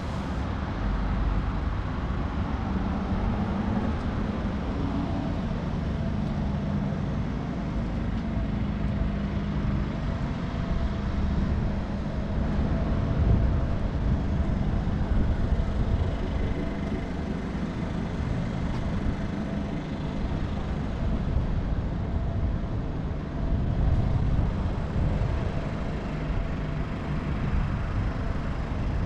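Steady road traffic noise, a low rumble with no distinct events.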